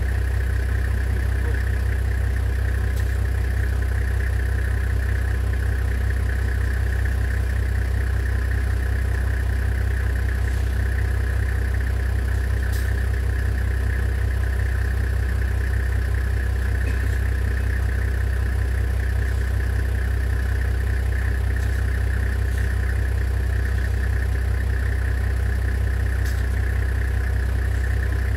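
Vehicle engine idling steadily, a low drone that does not change in pitch or pace.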